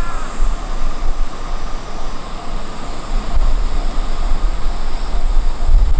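Train passing close by at a railway level crossing: a loud, steady rumble and rush of noise. The crossing's warning bell is heard only at the very start.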